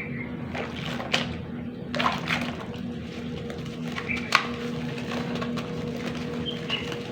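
Dry, crunchy black clay crumbling and dropping into water, with sharp cracks and splashes about a second, two seconds and four seconds in, over a steady low hum.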